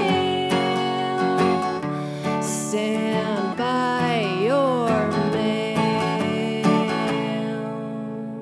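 Acoustic guitar strummed under a woman's singing voice, closing a folk-style song; the voice bends through a held note, then the last guitar chord rings and fades out near the end.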